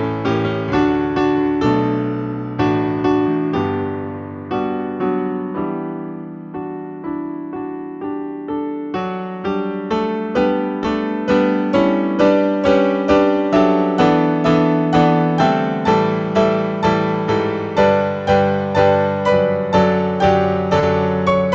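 Solo piano music: a steady run of struck notes and chords, each fading after the strike, softer for a while and then fuller and louder from about halfway through.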